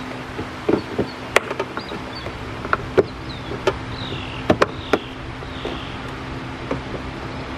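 Sharp plastic clicks and snaps, a dozen or so and mostly in the first five seconds, as a Toyota Prius's plastic windshield cowl panel is worked into place with a screwdriver and pressed down so its clips seat. A steady low hum runs underneath.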